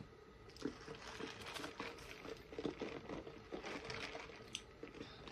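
Faint close-up mouth sounds of eating: chewing, then sipping a drink through a straw from a plastic cup, with many small wet crackles and clicks.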